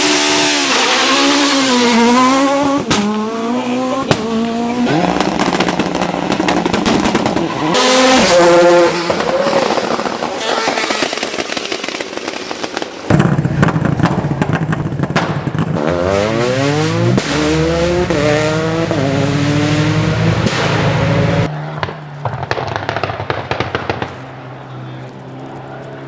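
Race car engines revved hard over and over, the pitch sweeping up and falling back, with sharp exhaust pops and crackles of backfire between and after the revs. Near the end an engine settles to a lower, steadier idle with scattered pops.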